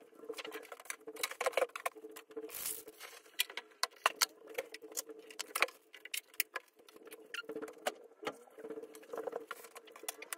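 Light tapping, clicking and rustling of small objects and packaging being picked up and set down on a desk, at irregular intervals, over a faint steady hum.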